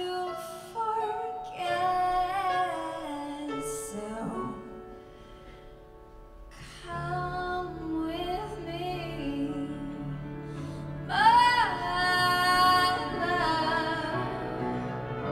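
A woman singing into a handheld microphone, with piano and guitar accompaniment. The singing drops away to a quieter stretch midway. About eleven seconds in she comes back with a loud, belted phrase that swoops up to a high note.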